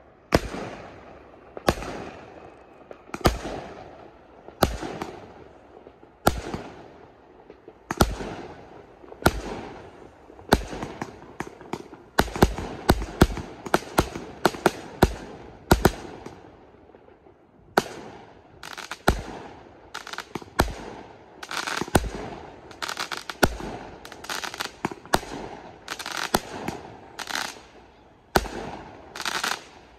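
Aerial firework shells bursting overhead, heard from directly beneath, as a string of sharp bangs about one every second and a half. The bangs crowd into a fast volley about twelve seconds in, pause briefly, then resume. Crackling fills the gaps between bangs.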